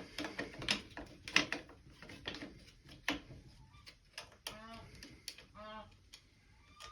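Clicks, taps and light knocks of exhaust parts and bolts being handled and fitted on a dirt bike, with two short squeaks about four and a half and five and a half seconds in.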